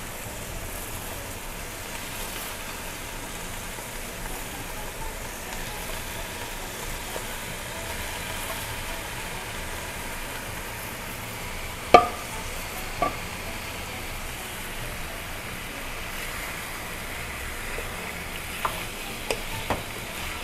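Cubed pork belly sizzling steadily as it starts to fry in a pan with sautéed onions and garlic. Two sharp clinks about a second apart come past the middle, and near the end a wooden spatula knocks against the pan as the meat is stirred.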